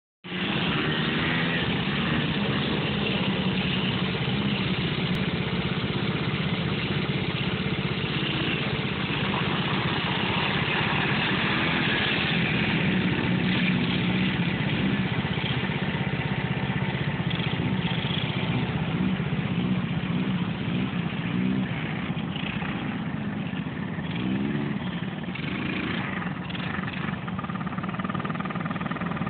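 Small sport ATV (quad bike) engine running steadily as it is ridden, with its pitch rising and falling with the throttle several times in the second half.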